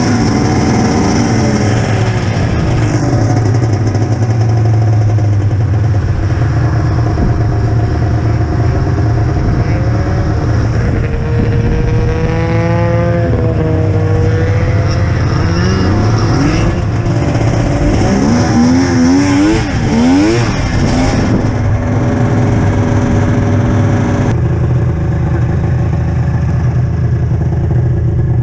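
Polaris Ultra RMK snowmobile's three-cylinder two-stroke engine running under way at trail-cruising speed, its revs rising and falling several times.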